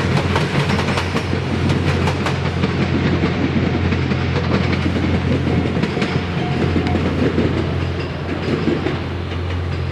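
Diesel train moving slowly past close by: a steady low engine drone, with wheels clicking over rail joints, thickest in the first couple of seconds.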